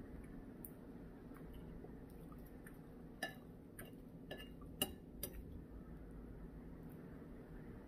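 Spoon clinking against a soup bowl while eating, about five light clinks a second or so into the middle of the stretch, the loudest near the end of the run, over faint room hum.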